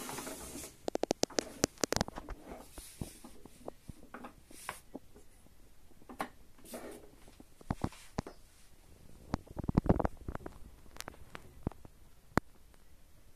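Hands handling a miniature model bus: scattered clicks and taps on its body and small parts, with a quick run of clicks about a second in and a cluster of knocks around ten seconds in.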